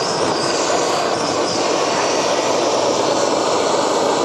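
Blowtorch flame hissing steadily as it is played on a dishwasher pump motor that is being burned out while still powered.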